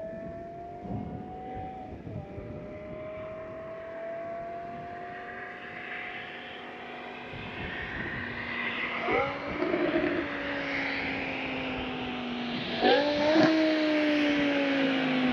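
BMW E60 M5's 5.0-litre V10 through an aftermarket exhaust, driving with the engine note climbing slowly through the revs and dropping once about two seconds in. Two brief sharp changes in the note come around nine and thirteen seconds, and near the end it eases off with the pitch falling steadily.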